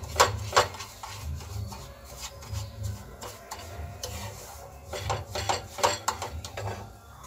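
Wooden spatula scraping through semolina roasting in ghee and knocking against the pan in quick stirring strokes, stirred fast and continuously so no lumps form. Sharp taps come in clusters at the start and again about five seconds in, with softer scraping between.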